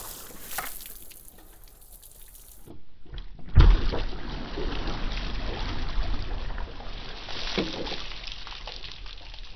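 A bucket of water dumped onto a truck windshield. A light splash first, then, heard from inside the cab, a heavy slosh hits the glass about three and a half seconds in. It is followed by water streaming and dripping down the windshield, slowly fading.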